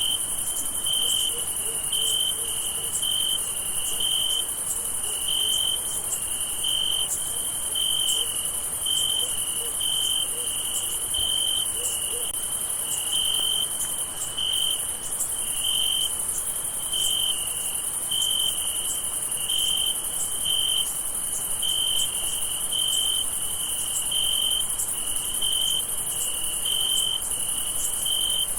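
Night chorus of crickets: one cricket chirps in even pulses, about three chirps every two seconds, over a continuous high-pitched insect trill.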